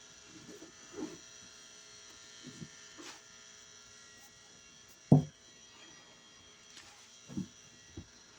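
Steady electrical buzz from a fluorescent light, its ballast humming at many fixed pitches. Over it come a few soft squishes and handling thumps from a soapy sponge being squeezed, the loudest about five seconds in.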